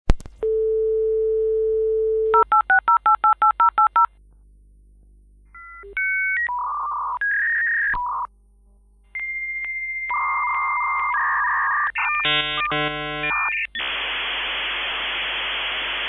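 56K dial-up modem connecting over a phone line: a click as the line is picked up, a steady dial tone, then a quick string of touch-tone digits being dialed. After a short lull the answering modem's high tone and a run of shifting beeps and chirps of the handshake follow, turning into a steady hiss of line-training noise for the last couple of seconds.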